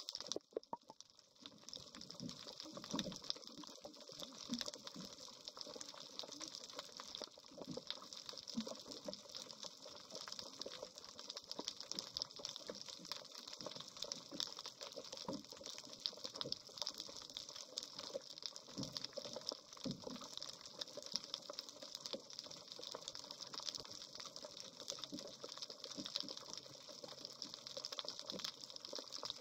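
Underwater ambience heard through a submerged camera beneath a boat hull: a steady watery hiss with dense crackling clicks and gurgling. The level dips briefly about a second in.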